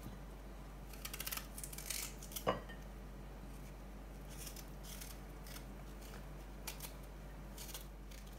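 A kitchen knife blade scraping the skin off a piece of fresh ginger root, in short runs of faint scraping strokes, thickest between about one and two and a half seconds in and sparser after that.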